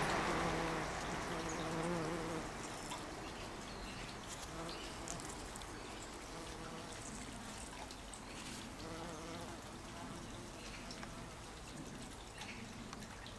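A bumblebee buzzing in flight as it visits a lupin flower: a low, steady hum for the first couple of seconds, over a fading background rumble, then fainter buzzing and scattered faint clicks and rustles.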